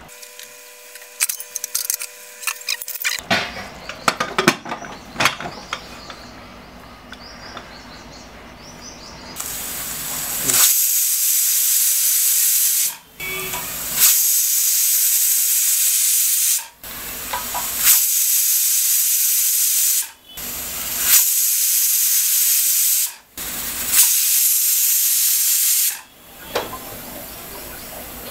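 Unique-brand aluminium pressure cooker whistling: steam hisses out past the lifted weight in five loud bursts of two to three seconds, with short drops between them, after a rising hiss as pressure builds. This is the cooker's second whistle, the count used to time the cooking. Before it, scattered clicks and knocks.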